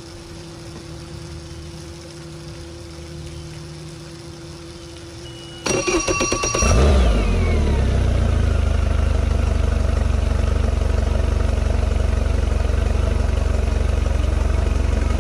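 Mercury 150 FourStroke inline four-cylinder outboard started after a faint steady hum: the electric starter cranks briefly about six seconds in, with a falling starter whine, and the engine catches within a second. It then settles into a steady idle.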